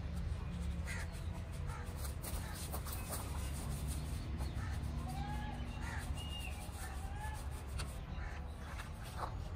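Birds calling outdoors, a handful of short arched calls mostly in the middle, over a steady low rumble, with light scratching from a paintbrush being worked over a cement surface.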